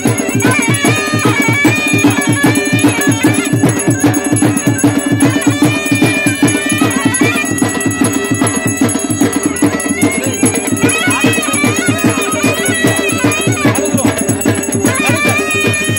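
Loud traditional devotional music: a high, wavering melody line over fast, continuous drumming of about six strokes a second.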